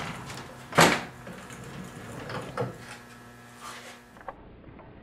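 Wooden knocks and clunks as a wooden chest of drawers is turned around on a wheeled furniture dolly, with one loud sharp knock about a second in and a few lighter ones after.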